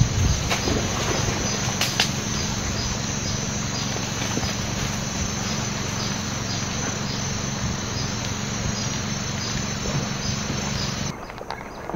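Insects chirring steadily, a high tone pulsing about twice a second, over a steady rushing noise; the sound cuts off abruptly near the end.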